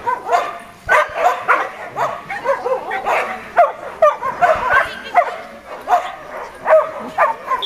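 A dog barking over and over in short, high-pitched yips, two or three a second without a pause.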